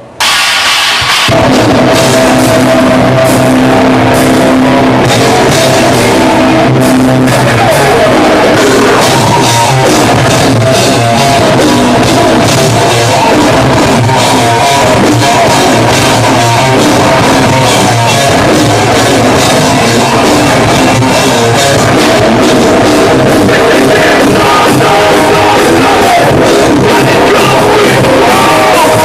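Live metalcore band kicking in loud and sudden: distorted electric guitars, bass and drum kit in full, with some vocals, recorded from the audience.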